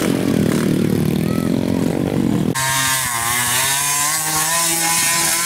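Two-stroke trail bike engines revving, with a rasping note. About halfway through the sound changes abruptly to a higher engine note that wavers up and down.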